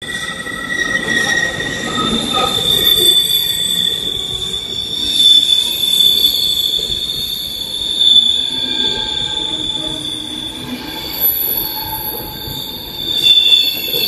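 Wheels of a double-deck passenger train squealing as it runs through a curve: a loud, steady, high-pitched squeal over the rumble of the passing cars, with a second, lower squeal tone in the first couple of seconds. This is curve squeal from wheel–rail friction.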